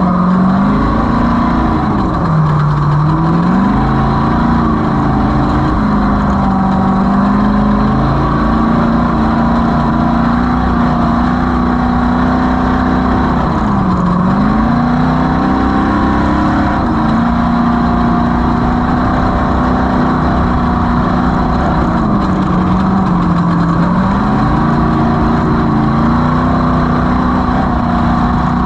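Desert off-road race vehicle's engine running hard and steadily, with a rumble of the ground under it. Its pitch drops briefly and climbs back three times, about 3, 14 and 23 seconds in, as the throttle is eased and reapplied.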